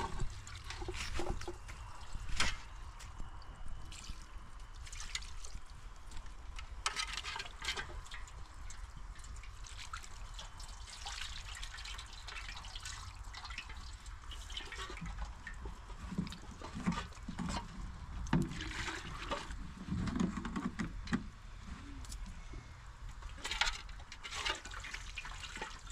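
Water poured from a plastic jug into a metal pot, trickling and splashing as raw chicken pieces are rubbed and washed by hand in it.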